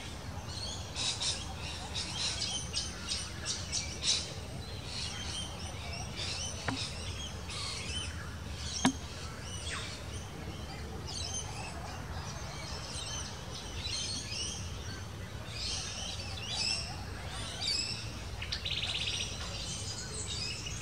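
A mix of wild birds chirping and calling over one another, all high-pitched short notes, over a steady low hum. A single sharp click about nine seconds in, and a fast trill near the end.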